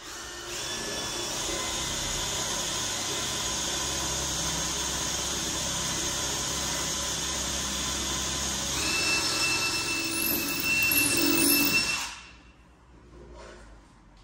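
Cordless drill boring a hole through a kitchen cabinet door for a handle: a steady whir that changes pitch and grows louder about nine seconds in, then stops suddenly about three seconds later.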